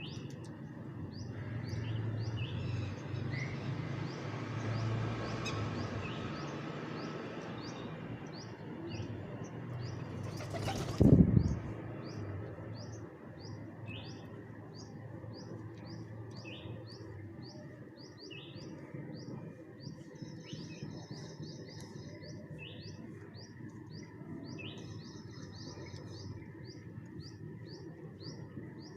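Birds chirping: a steady run of short, high, repeated calls over a low background rumble. About eleven seconds in, a sudden loud rush of noise stands out as the loudest sound.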